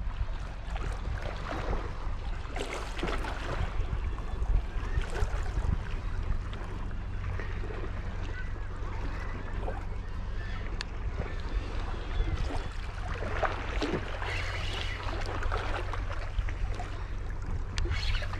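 Seawater washing and lapping against the rocks in irregular surges, over a steady low rumble of wind on the microphone.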